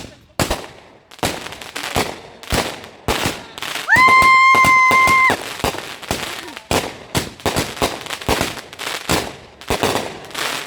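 Consumer fireworks going off: a rapid, irregular run of sharp pops and cracks. About four seconds in, a loud shrill whistle rises, holds steady for about a second and a half, and cuts off.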